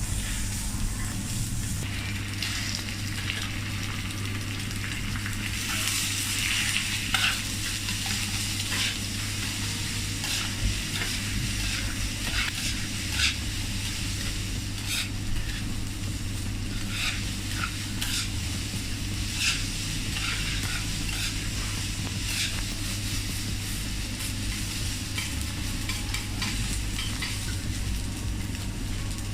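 Food sizzling on a teppanyaki hot plate, with a steady frying hiss, while metal spatulas scrape and click against the griddle many times. A steady low hum runs underneath.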